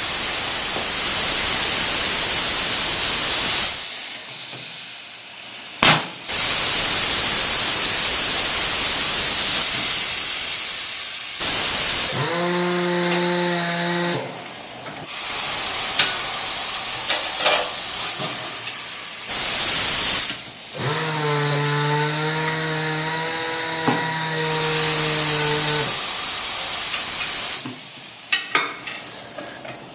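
Compressed-air tools in a tire shop: loud bursts of air hiss that start and stop abruptly every few seconds. Twice, a steady pitched whine from a motor or air tool runs for a few seconds, once briefly and once for about five seconds.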